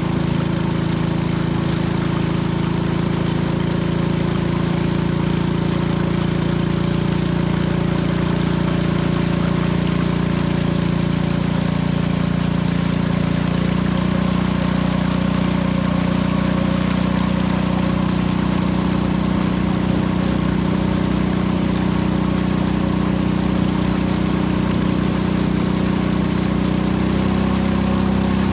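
Motor of a narrow wooden riverboat running steadily under way, a constant low drone whose pitch shifts slightly about halfway through.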